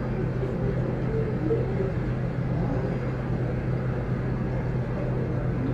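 Steady low hum of indoor background noise, with a faint murmur of distant voices.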